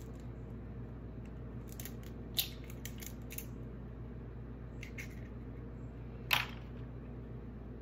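A few light clicks and a single louder knock, about six seconds in, of kitchenware such as a bowl and eggs being handled on a counter, over a steady low hum.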